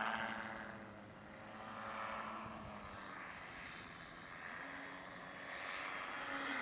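Motor and propeller of a 1:5 scale Piper J-3 Cub radio-controlled model plane droning overhead. It swells and fades as the plane passes back and forth.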